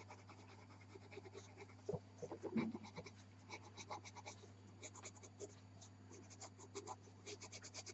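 Soft, faint strokes of a pastel pencil rubbing over velour pastel paper, many short scratches in a loose, uneven rhythm, with a brief low sound about two and a half seconds in.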